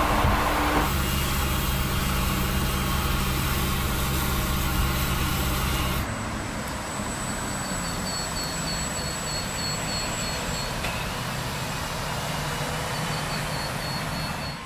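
Mercedes-Benz hydrogen fuel-cell heavy truck driving on a road: a steady low hum with tyre noise, with no diesel engine note. About six seconds in the sound cuts to a quieter, more distant road sound, with faint rapid high beeping heard twice in the second half.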